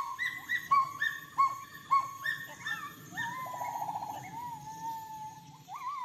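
Gibbon calling: a run of short hooting notes, about two a second, each swooping up and then dropping. About halfway through comes a fast trill, then one long held note.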